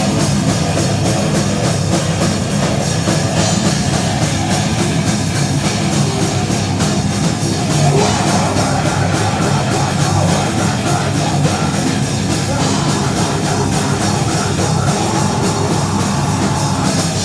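Live metalcore band playing loud, dense heavy metal with drums and distorted guitars.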